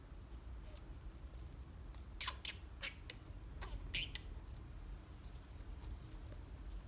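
Pet budgerigar making a few short, high squeaky chirps and small clicks, in a cluster about two seconds in and another about four seconds in, over a low steady hum.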